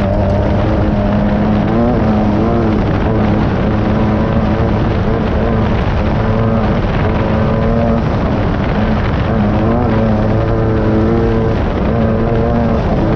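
Class 9 off-road buggy's air-cooled VW engine running hard under race load, its revs rising and falling again and again, over heavy wind and chassis rattle from rough desert terrain, heard from inside the car.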